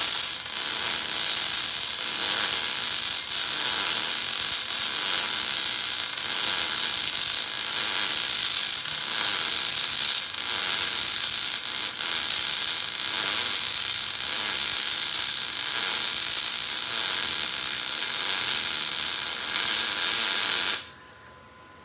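A Lincoln Electric Power MIG 211 MIG welder's arc crackling steadily while laying an overhead fillet weld. The arc cuts off abruptly near the end.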